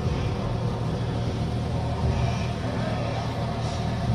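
A steady low rumble, with a faint murmur of voices under it.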